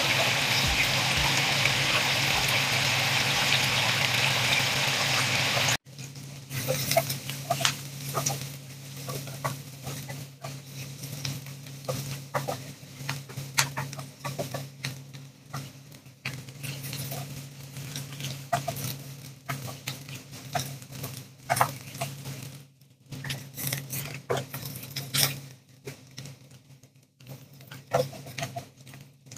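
Food frying in a pan with a steady sizzle that cuts off suddenly about six seconds in, followed by scattered soft clicks and taps over a low steady hum.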